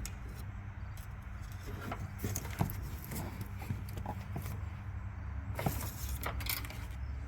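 Honda Odyssey's 3.5-litre V6 idling steadily, with scattered light clicks and rattles from the transmission dipstick being handled.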